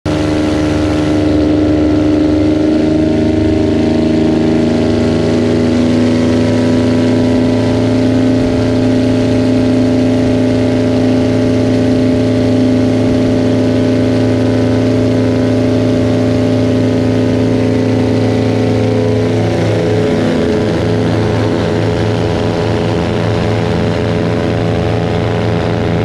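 Piston engines and propellers of a twin-engine Aero Commander at takeoff power, a loud steady drone as the plane takes off. Some of its tones shift a little in pitch near the end.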